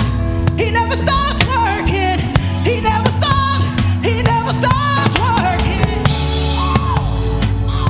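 Live gospel worship music: a solo voice singing a sliding, melismatic line over a band with drum kit and bass.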